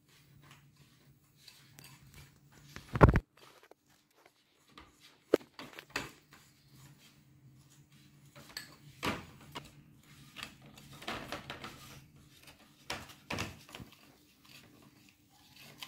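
Metal spoon scraping and clinking against a glass bowl while stirring a crumbly biscuit-and-cocoa mixture, with one loud knock about three seconds in. A faint steady low hum runs underneath.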